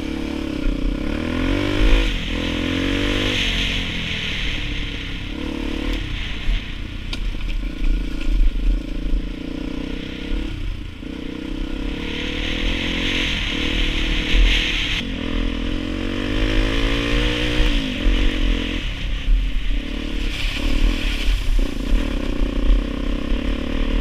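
Dirt bike engine running under way on a gravel road: the pitch climbs as it accelerates and drops back at each gear change, several times over.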